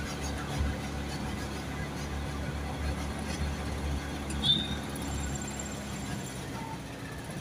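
Low, steady rumble of a moving vehicle's engine and road noise, heard from on board, easing off about six seconds in. A short high-pitched squeak cuts through about four and a half seconds in.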